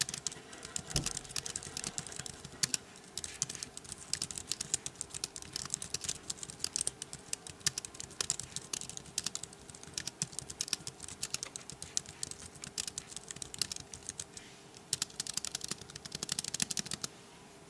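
Typing on the plastic keys of a Chesona budget iPad Bluetooth keyboard: a steady stream of light key clicks, with faster runs near the end before it stops.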